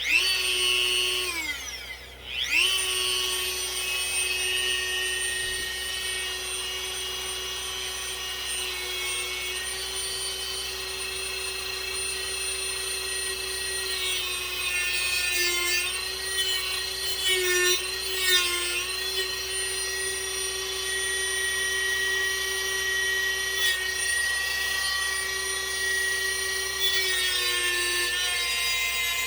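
Corded electric power tool cutting through a wooden dowel rod. Its motor runs with a steady high whine, winds down and starts again about two seconds in, and sags slightly in pitch a few times as it bites into the wood.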